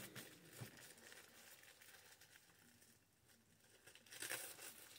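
Faint crinkling and rustling of plastic fast-food packaging being handled, with a short burst of crackles about four seconds in; otherwise near silence.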